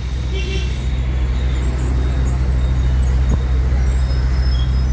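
Open-top double-decker bus engine running with a steady low drone, heard from aboard the moving bus and growing slightly louder in the first couple of seconds; a single short tick about three seconds in.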